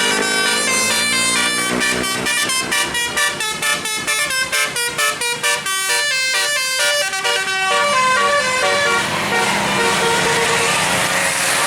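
A bus's multi-tone musical air horn (telolet) playing a melody: held notes at first, then a fast run of short notes, giving way after about eight seconds to a steadier noise with fainter horn tones.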